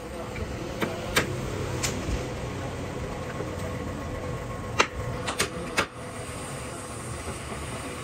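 Hand hammer tapping the wooden slats of a fridge stand frame: a few separate sharp strikes in the first two seconds, then a louder quick run of taps around five to six seconds. Steady background noise runs underneath.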